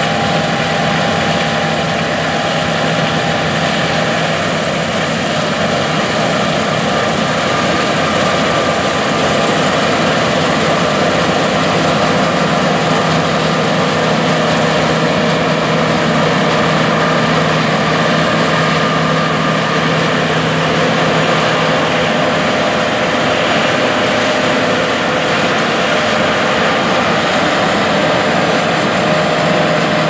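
Engines running steadily: a continuous loud mechanical hum with a few held whining tones above it.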